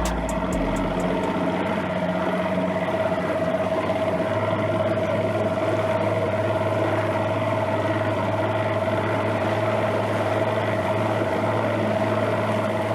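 Boat motor running steadily at constant speed, with an even hum that holds one pitch throughout.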